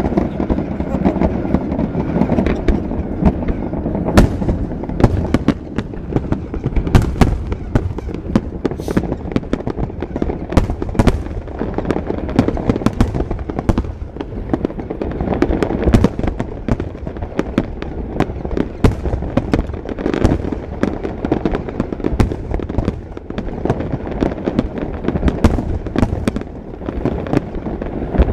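Fireworks display: aerial shells bursting one after another, a dense, irregular string of sharp bangs, several a second at times, over a continuous low rumble.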